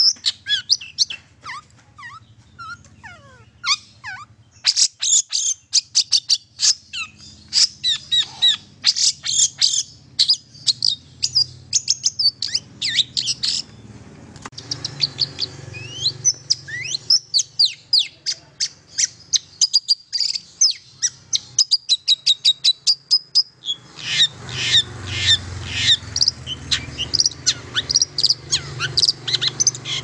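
Long-tailed shrike (cendet) singing a rapid, chattering run of short high notes, in dense bursts with a softer, sparser stretch in the middle. A faint steady low hum sits underneath.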